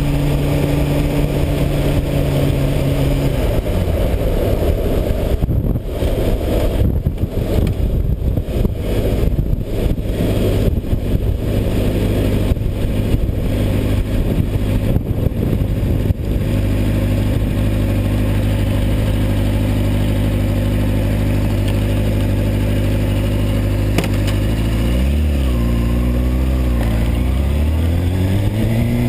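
Honda CBR600RR's inline-four engine heard from on the bike: a steady note that gives way to a rougher, noisier stretch, then settles into a low steady note. Near the end the pitch wobbles briefly, then climbs steadily as the bike accelerates.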